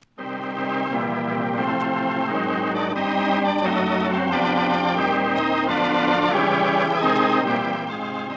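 Organ music playing sustained chords that change every second or so, a musical bridge into the next act of a radio drama. It begins abruptly and eases off a little near the end.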